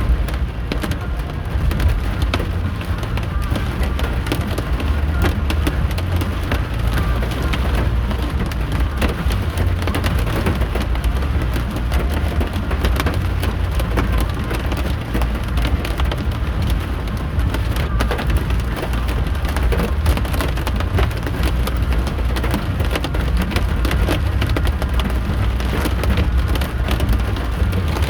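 Heavy storm rain beating on a moving car, heard from inside the cabin: a dense patter with many sharp taps over a steady low road rumble.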